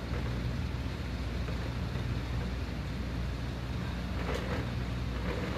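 Heavy rain pouring down in a thunderstorm, a steady hiss of rain, over a steady low rumble.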